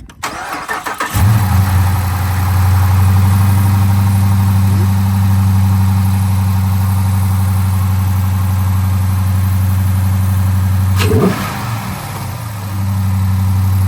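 A 2019 Dodge Charger R/T's 5.7-litre HEMI V8, breathing through a newly fitted JLT cold air intake, is cranked and catches about a second in, then idles loud and steady. Its level dips briefly about eleven seconds in and then comes back.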